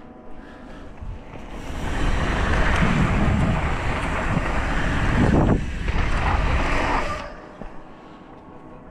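Wind buffeting an action camera's microphone together with mountain-bike tyres rolling over loose dirt and rock on a fast downhill run. The noise builds loud about two seconds in and falls away suddenly about seven seconds in as the bike slows.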